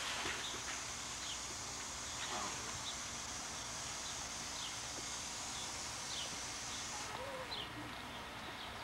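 A bird chirps repeatedly in short, quick notes over a steady high hiss that stops suddenly about seven seconds in.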